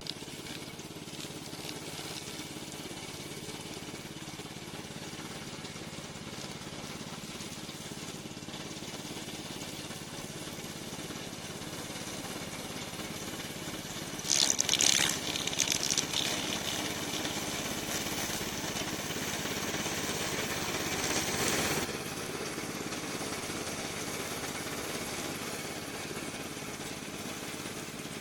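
Engine of a remote-control tracked mower running steadily, with a loud burst of hissing, rattling noise about halfway through and another louder stretch a few seconds later.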